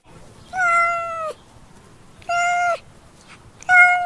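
Domestic cat meowing three times, each meow holding one pitch and dropping off at its end; the first is the longest and the last starts near the end.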